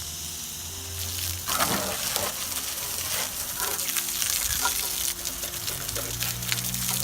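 Liquid spraying onto a car's engine bay with a steady hiss, during an engine-bay clean with degreaser and a garden hose.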